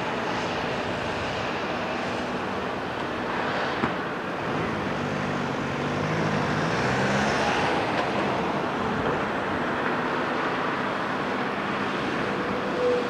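CAT 374F L excavator's C15 ACERT diesel engine running under load as the machine swings its arm and lowers the bucket into rubble. The engine note climbs around the middle, and there is a single sharp knock about four seconds in.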